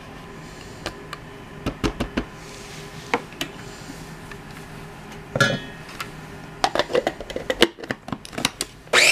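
Scattered plastic clicks and knocks as the clear bowl and lid of a KitchenAid food chopper are handled and the lid is pressed back on. They come in a cluster near the end. Right at the end the chopper's motor starts up with a rising whir.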